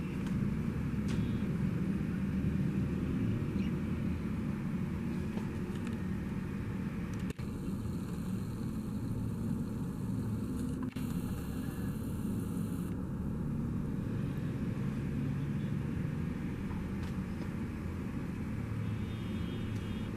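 Steady low rumble of road traffic, broken by two very brief dropouts about seven and eleven seconds in.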